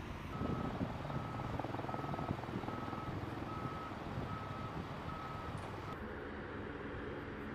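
Heavy military truck's reversing alarm beeping at an even pace, roughly one and a half to two beeps a second, over its engine running. The beeps stop about six seconds in.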